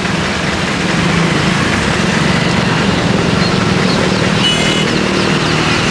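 Three-wheeler auto-rickshaw and motorcycle engines running at low speed through shallow flood water: a steady low engine drone over a wash of water noise. A short high tone sounds about four and a half seconds in.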